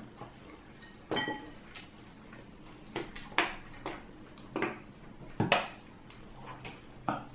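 Cutlery clinking and knocking on china plates during a meal: a series of about seven short clinks, the first about a second in ringing briefly.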